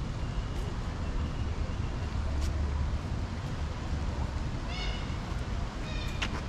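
Steady low outdoor rumble of city ambience, with faint short high chirps and two brief bird calls, one about two-thirds of the way through and one near the end.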